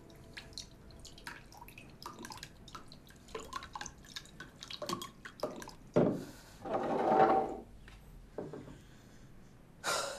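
Liquid poured from a glass bottle into a drinking glass, with dripping and small clicks and ticks. About six seconds in comes a louder noisy sound lasting about two seconds, and near the end a short sharp one.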